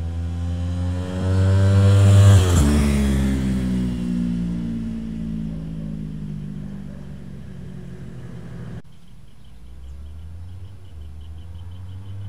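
Yamaha R3's parallel-twin engine through a Yoshimura R77 carbon slip-on exhaust, in a flyby: the exhaust note climbs as the bike approaches, drops sharply in pitch as it passes about two and a half seconds in, and fades as it rides away. About three-quarters through the sound cuts suddenly to a quieter, steady engine note.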